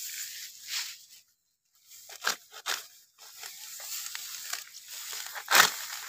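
Hand sickle cutting through dry wheat stalks: a few crisp tearing strokes over a rustle of dry straw, the loudest stroke near the end.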